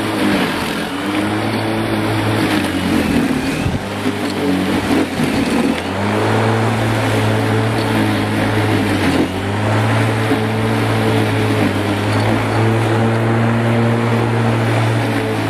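Bosch Rotak 34R corded electric lawn mower with a 1300 W motor, running and cutting grass as it is pushed: a steady motor-and-blade hum. Its pitch dips briefly about a second in, wavers between about three and six seconds in, and dips again near nine seconds.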